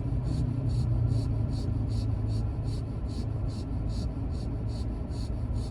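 Steady low hum inside a car cabin, with a light, regular ticking about two and a half times a second.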